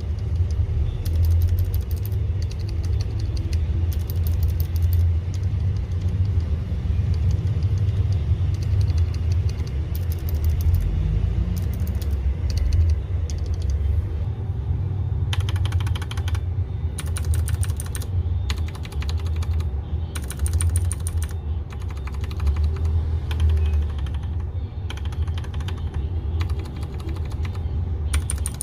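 Typing on a Rakk Illis mechanical keyboard fitted with Akko V3 Cream Yellow linear switches: a steady run of fast, uneven keystrokes with a deep, full bottom-out sound.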